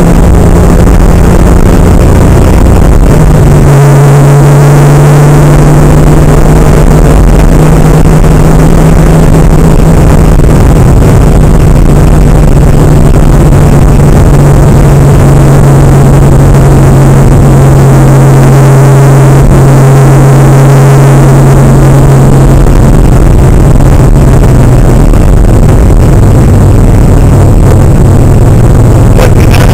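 Porsche 911's flat-six engine running steadily at highway cruise, heard from inside the car as a loud, even low drone over road and wind noise. The note holds smooth, a sign the freshly built 3.4 engine is running well.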